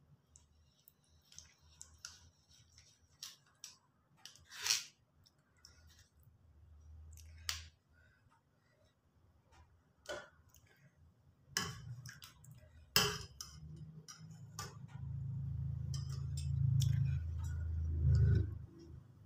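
Steel ladle clinking and scraping against a steel saucepan and a plastic tea strainer as hot agar agar liquid is scooped and strained, in scattered sharp clinks. A low rumble comes in past the middle and is loudest near the end.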